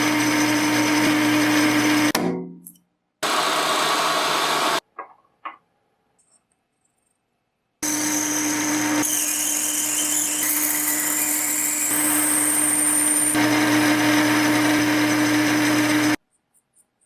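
Electric power tool running at steady speed in several cut-together stretches; about two seconds in it winds down, its pitch falling as it stops, and after a pause it runs again for a long stretch.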